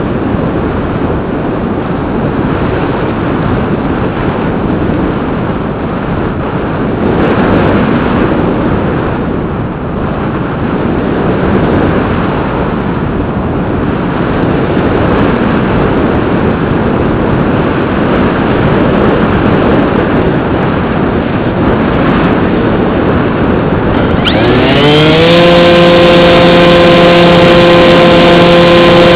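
Rushing airflow over a Bixler 2 model plane's onboard camera as it glides, then about 24 seconds in the plane's electric motor spools up with a rising whine and settles into a steady, high buzzing drone.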